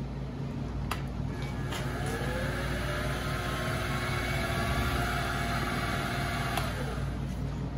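King Canada KC20VS bench mill running with a drill bit cutting into an aluminum plate: a steady motor hum with faint tones sliding up and down as the bit cuts, and a couple of light clicks.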